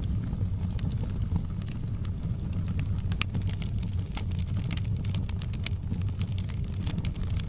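Wood fire burning: a steady low rumble under many sharp crackles and pops, which come thicker in the second half.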